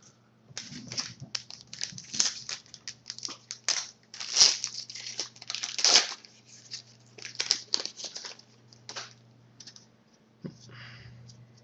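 Foil trading-card pack wrapper being crinkled and torn open by hand, a run of sharp crackles that dies down near the end, over a faint steady electrical hum.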